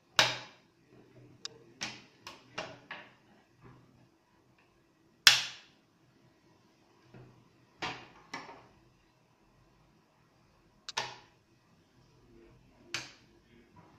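Hard plastic pieces of a 3D-printed snake skull model clicking and knocking as they are handled and fitted together, about a dozen sharp clicks at irregular intervals, the loudest about five seconds in.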